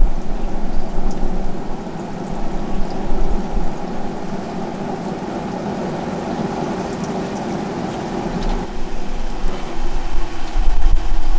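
Steady rushing noise of wet, windy weather, with wind buffeting the microphone in gusts at the start and again near the end.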